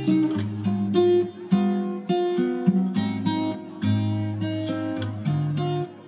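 Background music: acoustic guitar strumming and picking chords in a steady rhythm, with the chords changing every second or so.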